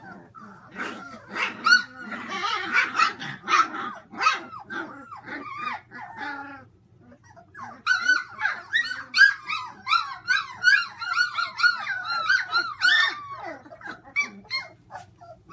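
A litter of young puppies crying and yipping: many short high-pitched squeals overlap one another, with a pause of about a second halfway through.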